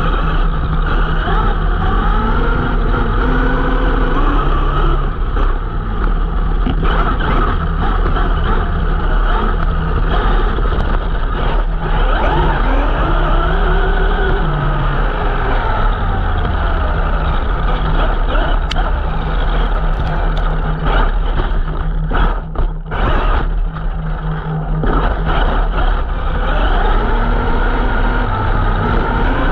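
Traxxas X-Maxx electric RC monster truck running flat out over grass, its brushless motor and drivetrain whining in pitches that rise and fall with the throttle, over constant rumble and rattle from the rough ground. Heard from a camera mounted on the truck itself, with a few brief dips in the sound about three quarters of the way through.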